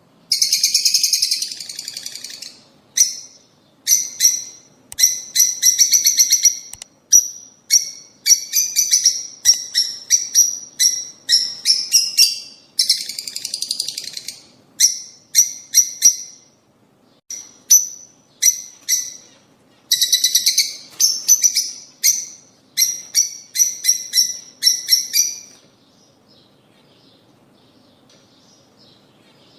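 Lovebirds chattering: runs of rapid, shrill chirps in bursts of a second or two, with short pauses between them, falling quiet for the last few seconds.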